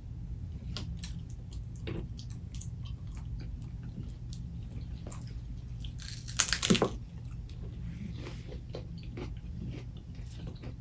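Close-miked bite into a lettuce-wrap chicken sandwich: one loud crisp crunch about six seconds in, with quieter chewing and mouth clicks before and after.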